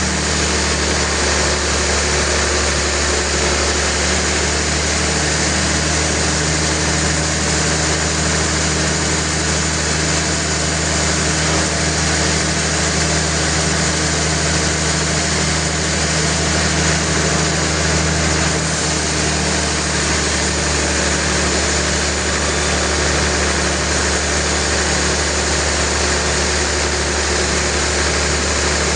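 Sawmill machinery running steadily, a constant engine-like drone with saw noise over it.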